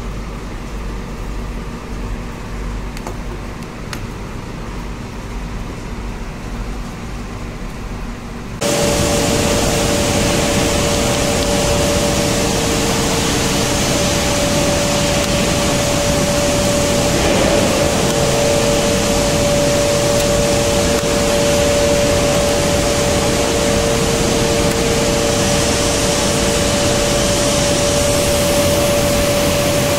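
Hydraulic shearing machine's motor and hydraulic pump running: after a quieter low hum, a loud steady whir comes in suddenly about nine seconds in, carrying a whine of two steady tones, and the lower tone drops out near the end.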